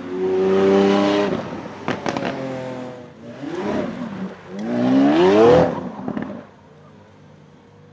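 Lamborghini Centenario Roadster's naturally aspirated V12 revving hard in bursts, the pitch climbing steeply on each rev, with a few sharp exhaust crackles about two seconds in. Near the end it drops back to a quieter steady note.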